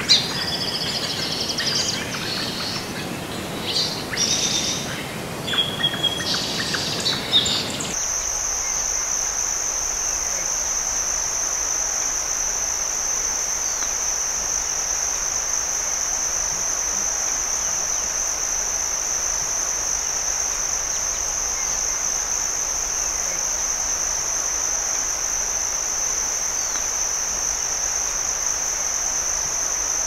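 Birds chirping and calling for about the first eight seconds, then, with an abrupt change, a steady, high-pitched insect drone that holds unchanged for the rest.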